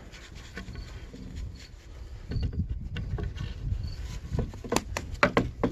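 Hand tools at work on a combine's beater belt tensioner: scattered sharp clicks and knocks over a low rumble, the clicks coming closer together near the end.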